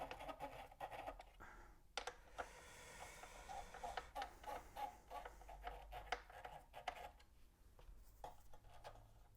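Sharp RP-207 turntable mechanism running with a faint, rhythmic scraping and light clicks: something is jammed inside it and it isn't running right.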